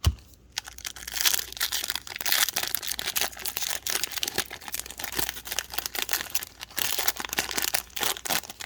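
A trading card pack's foil wrapper being torn open and crinkled in the hands: a steady, dense crackle of rustling after a sharp thump at the start.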